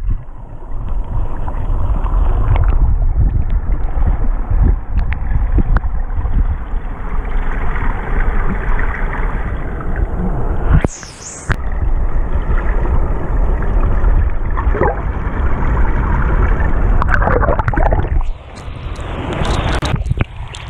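Water heard through a camera held under the surface of a creek: a muffled, steady low rumble, with a short, brighter splash about eleven seconds in.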